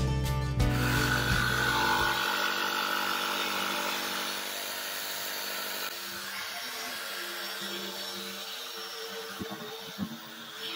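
Bosch jigsaw sawing steadily along a curved line, cutting a hole through a painted pine panel. The saw sound eases slightly in level as the cut goes on, with a couple of small knocks near the end.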